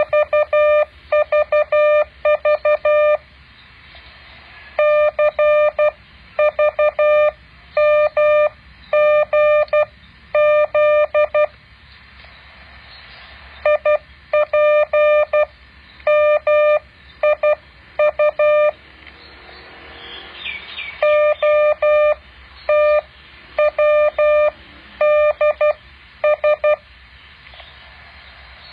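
Morse code practice tone, a steady beep keyed into short and long elements, sent in runs of characters separated by pauses, with a longer break about halfway through. A faint hiss lies underneath.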